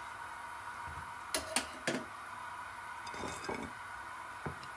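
Kitchen dishes and utensils clinking and knocking a few times while food is being handled, over a steady faint hum.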